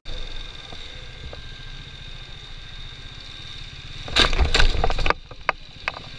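Motorcycle engine running with a steady low rumble, then about four seconds in a loud crash as the motorcycle strikes an opened car door, followed by a few sharp knocks.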